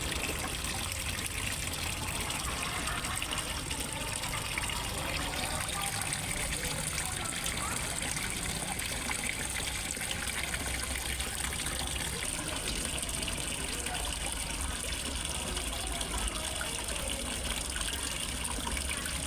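Steady gushing and trickling of water falling into a fish pond from a small waterfall.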